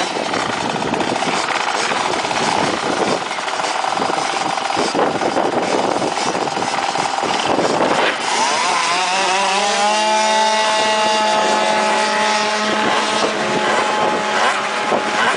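Two racing mopeds, a tuned two-stroke scooter and a small dirt bike, revving unevenly at the start line, then launching about eight seconds in; after that one engine holds a steady high-pitched wail at full throttle as it pulls away down the strip.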